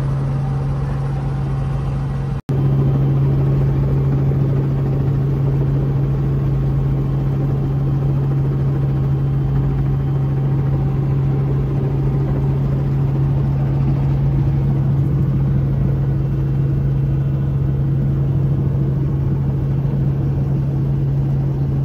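Helicopter engine and rotor drone heard inside the cabin: a loud, steady low hum with fainter overtones. It breaks off for an instant about two seconds in.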